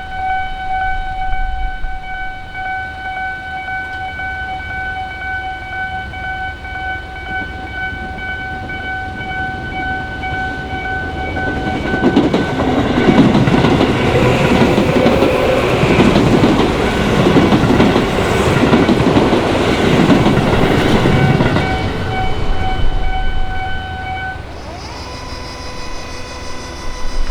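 A Japanese level crossing's electronic warning alarm sounds steadily with an unusual tone. An electric train on the Tobu Noda Line passes through from about twelve seconds in, with a loud rumble and clickety-clack of wheels over rail joints for about ten seconds. The alarm stops a couple of seconds after the train clears, and a different set of electronic tones begins near the end.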